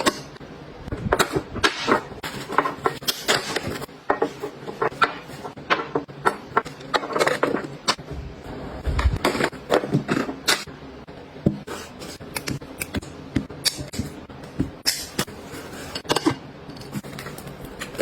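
Irregular clicks, taps and light scrapes of small objects being handled, set down and arranged by hand.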